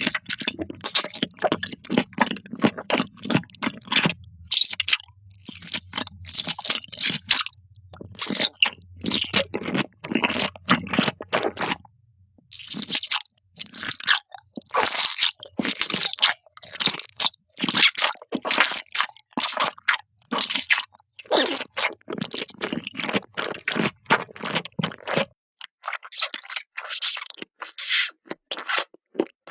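Close-up chewing of crisp, crunchy food: quick irregular crunches bite after bite, with a brief pause about twelve seconds in.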